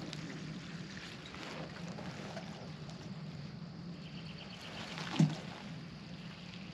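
Mixed liquid fertilizer being poured out onto garden plants, a soft steady trickle and splash over a steady low hum, with a single thump about five seconds in.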